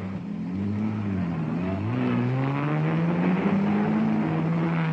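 Racing car engines running at speed, their pitch dipping then rising as they accelerate, then holding steady.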